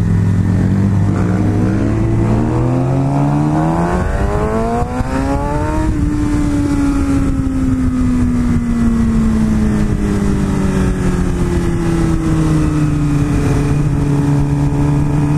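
Motorcycle engine under way: its pitch climbs steadily for about six seconds as it accelerates, then sinks slowly as the bike rolls off the throttle, over a steady rush of wind.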